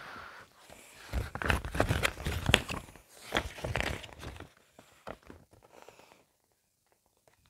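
Paper instruction manual rustling and crinkling as it is picked up and handled, with rubbing and knocking handling noise. It dies down to a few faint taps about halfway through.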